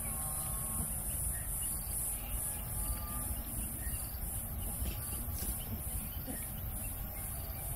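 Outdoor bush ambience: a steady, high insect drone pulsing about three times a second, over a low rumble, with faint distant calls.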